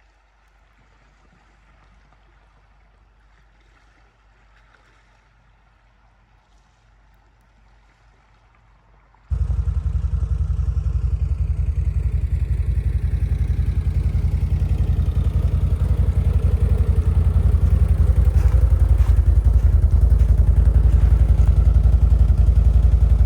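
Faint low background for about nine seconds. Then a sudden cut to a loud vehicle engine running with a deep rumble, growing steadily louder.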